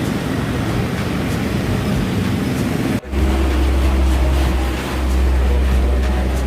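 Diesel bus engine running through a gutted, open exhaust. About three seconds in the sound cuts off for an instant and comes back as a loud, steady deep rumble.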